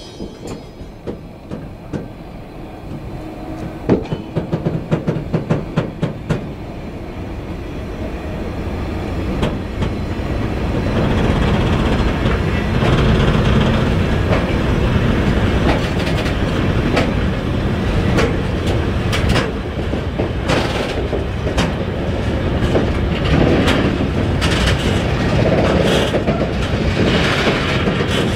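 Freight train of open-top steel wagons rolling slowly past. A quick run of wheel clacks over rail joints and points comes a few seconds in, then a steady rumble that grows louder as the wagons draw close.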